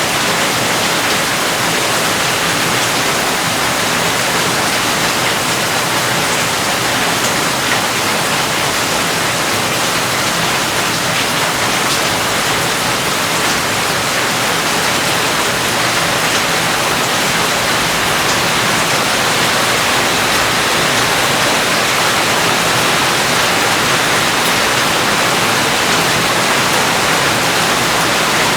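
Steady rain falling, an even, unbroken hiss of countless drops with no change in strength.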